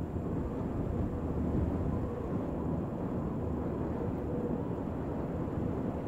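Steady low rumble of outdoor ambience, with no distinct events.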